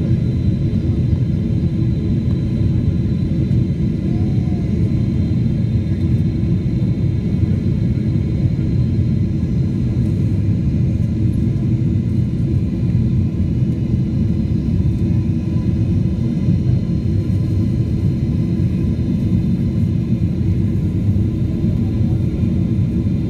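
Steady low rumble of an airliner's engines and rushing air heard inside the passenger cabin in flight, with a few faint steady high tones over it.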